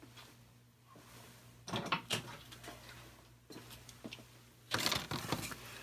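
Tools being rummaged and handled at a workbench: short spells of clattering about two seconds in and again, louder, near the end, over a steady low hum.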